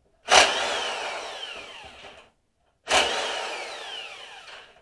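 Corded electric impact wrench run in two bursts about two and a half seconds apart, backing out front-axle bolts. Each burst starts suddenly and then dies away with a falling whine as the motor coasts down.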